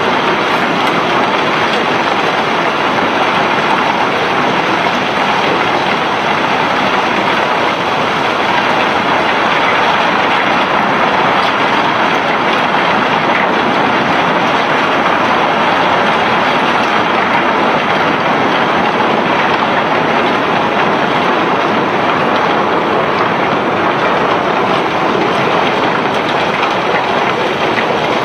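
Continuous dense rattling rush of cobblestones pouring and sliding out of a barge's hold during unloading, steady throughout with no pauses.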